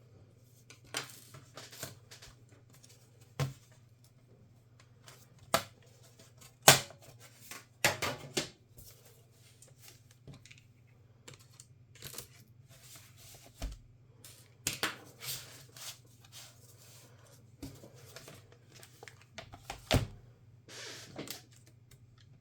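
Irregular clicks, taps and short scrapes of hands and small tools working on a laptop's case and parts, over a steady low hum.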